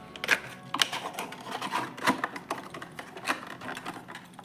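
Irregular clicks and crackles of plastic packaging being handled as a 1:64 diecast model car is taken out of its box.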